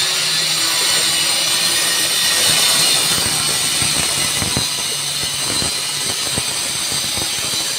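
A steady loud hiss with a low hum under it, and in the middle a run of light taps and scrapes as a brush works PVC solvent cement around the inside of a pipe fitting's socket.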